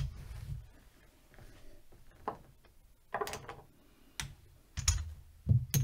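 Casino chips clicking together as they are placed and stacked on a craps layout: several separate short clicks spread over a few seconds.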